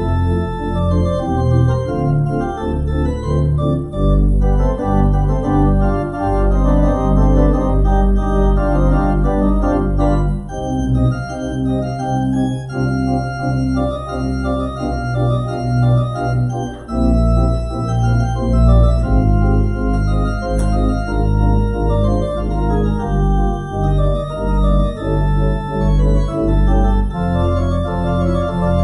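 Church organ playing the postlude at the end of the service: sustained chords over deep bass notes, the harmony shifting every second or two.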